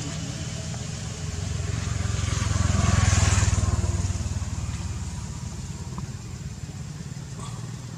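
Motor vehicle driving past, growing louder to a peak about three seconds in and then fading away.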